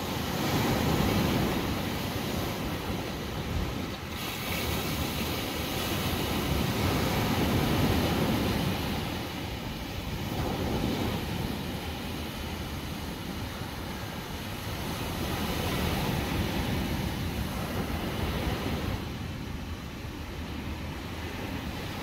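Ocean surf breaking on a sandy beach: a steady rushing wash that swells about a second in, again around eight seconds in and again around sixteen seconds in, easing between.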